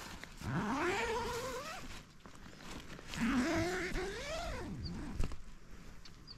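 Two long, wavering animal wails, each about a second and a half long and rising in pitch.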